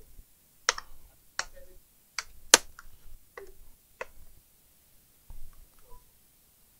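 Plastic case clips of an Acer Predator Helios 300 laptop snapping loose as the casing is pried apart: about six sharp clicks over the first four seconds, the loudest about two and a half seconds in.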